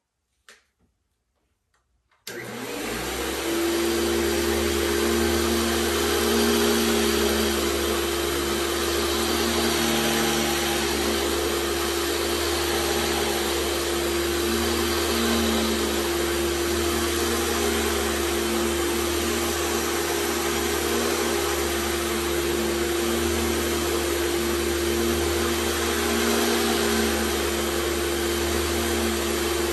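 Vintage 1975 Hoover Celebrity II canister vacuum switched on about two seconds in, its motor whining up to speed and then running steadily as its power nozzle is pushed over carpet.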